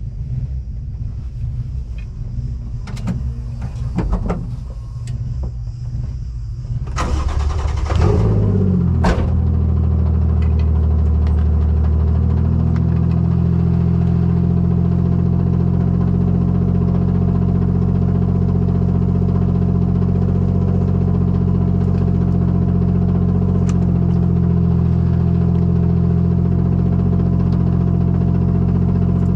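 A race car's engine is cranked and catches about seven to eight seconds in, after a few clicks and knocks from inside the cabin. It then settles into a steady idle with an even, unchanging drone, heard from inside the caged cabin.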